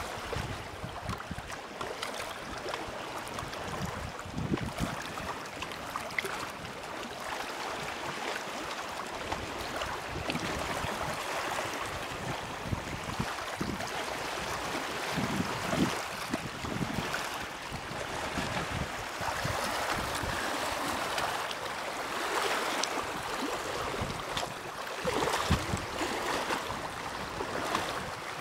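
Choppy lake water splashing and lapping against a rocky shore in a strong wind, with gusts buffeting the microphone several times.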